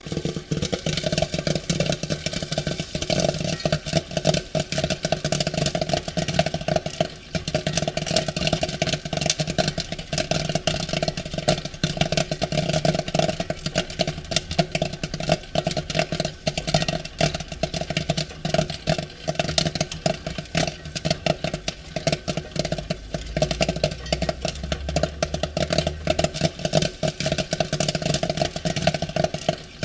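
Popcorn popping: a dense run of quick pops crowding together without let-up.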